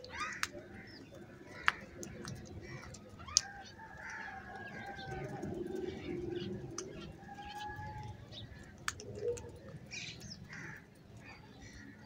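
Birds calling from a feeding flock of house crows and common mynas, with drawn-out whistled calls through the middle. A few sharp taps of beaks pecking grain on concrete come in the first few seconds.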